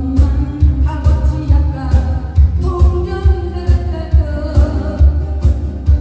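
A woman singing a Korean trot song through a microphone and PA, accompanied by her acoustic guitar, with a steady low beat pulsing underneath.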